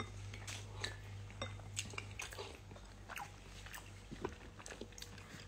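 Close-up chewing: scattered soft crunches and small mouth clicks over a low steady hum.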